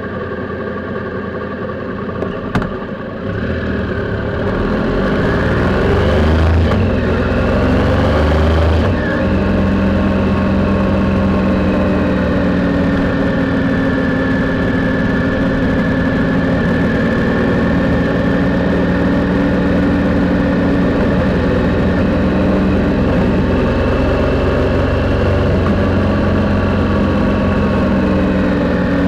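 Triumph Sprint's three-cylinder engine pulling away from a standstill: running low at first, a sharp click about two and a half seconds in, then the engine note rising for several seconds before dropping at a gear change around nine seconds in, after which it runs steadily at cruising speed.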